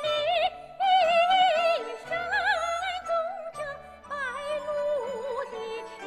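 Female soprano singing a Chinese art song in an operatic style, with wide vibrato and quick trill-like ornaments in short phrases, accompanied by a Chinese traditional orchestra with low pulses in the bass.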